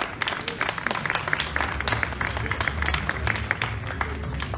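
Audience applauding, with many overlapping hand claps.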